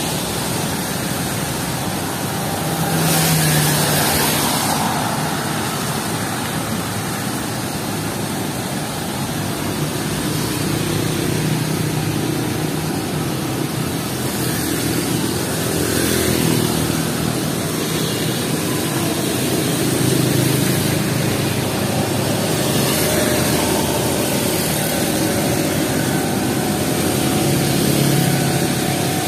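Steady hiss of heavy rain mixed with road traffic on a wet road: motorbikes and cars pass every few seconds, their engines and tyres swelling and fading.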